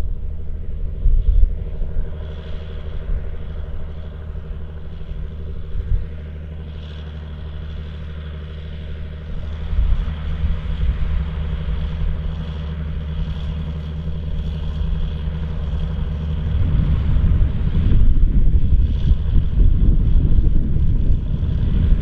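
John Deere 8530's six-cylinder diesel engine working under load as it pulls a seven-furrow plough, a steady drone. It grows louder and rougher about three-quarters of the way through as the tractor comes close.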